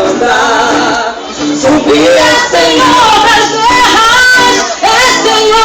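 A vocal group singing a song live, several voices over music, with pitch glides on held notes.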